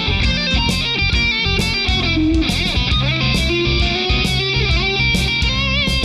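Rock band playing live without vocals: electric guitar strummed over bass and drums, with regular cymbal hits.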